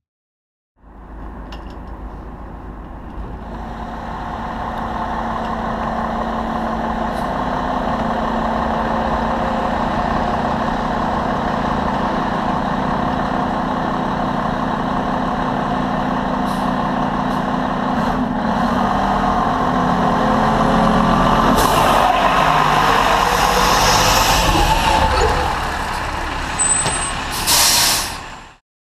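Fire engine's diesel engine running and growing louder as the truck pulls out of the station bay, its pitch rising and falling as it revs, with two sharp air-brake hisses near the end.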